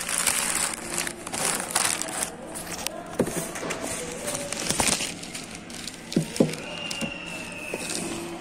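Rustling and handling noise close to a phone's microphone as a plastic bag and a sneaker are moved about, with scattered clicks and two sharp knocks about six seconds in.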